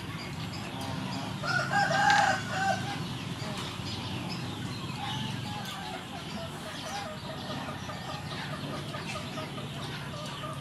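A rooster crows once, about two seconds in, the loudest sound here; softer chicken clucks follow through the rest.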